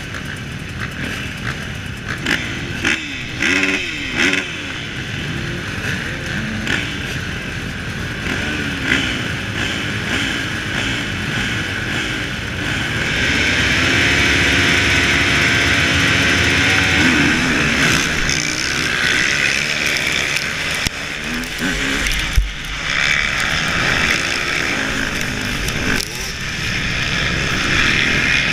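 A line of motocross bikes revving at the start gate, then all accelerating hard together about halfway through as the gate drops, the rider's own engine held at high revs into the first stretch. A single sharp knock about two-thirds of the way in.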